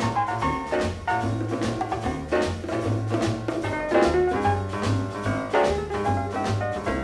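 Jazz music in a swing style: a walking bass line moving note by note under drums and other instruments at a steady beat.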